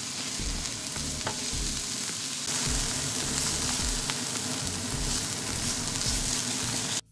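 Minced garlic and chopped leek sizzling in toasted sesame oil in a non-stick frying pan, stirred with a spatula, with a couple of light clicks from the spatula on the pan. The sizzle cuts off suddenly near the end.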